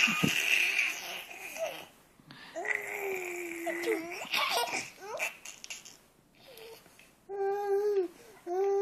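Nine-month-old baby babbling and laughing: breathy giggling squeals at first, then a long held vocal sound, and two short clear 'aah' calls near the end.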